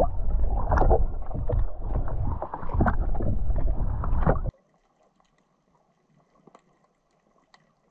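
Muffled rush of water with irregular knocks, heard from a camera in a waterproof housing as it sinks through the water. It cuts off suddenly to near silence about four and a half seconds in.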